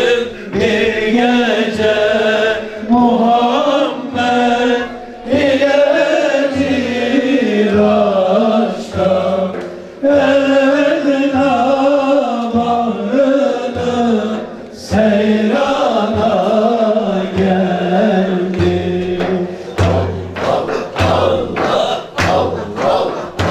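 Voices singing a chant-like song over a steady low beat that falls about once a second. Near the end, quicker sharp strokes come in.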